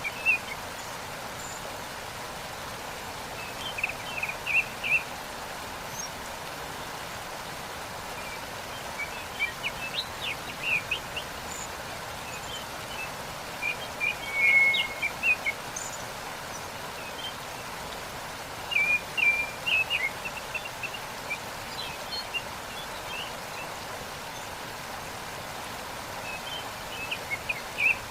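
Steady rush of falling water from a waterfall, with a small bird singing short, high chirping phrases every few seconds.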